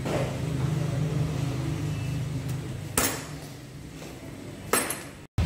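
Metal tools and engine parts clinking as the kick-start lever is taken off a motorcycle engine's clutch side. There are two sharp metallic clanks, one about three seconds in and one near the end, over a steady low hum.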